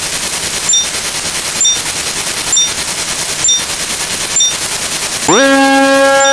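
Electronic sound effects for a counter ticking through numbers: a dense, rapid rattle like machine-gun fire, broken about once a second by a short high beep. About five seconds in, a buzzy tone slides up and holds.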